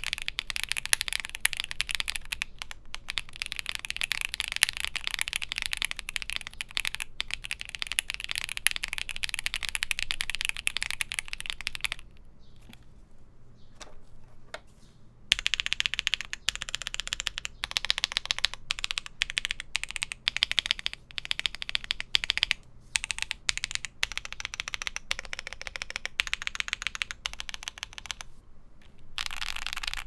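Mechanical keyboard fitted with Akko V3 Pro switches being typed on: a fast, steady run of keystroke clacks, then a short lull a little before halfway. After that come separate key presses spaced apart, and quicker typing again near the end.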